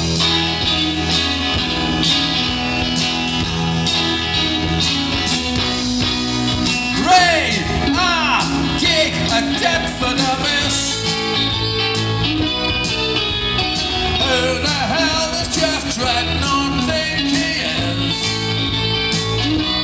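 Live rock band playing a song's instrumental intro at a steady loudness, electric guitar and bass guitar together.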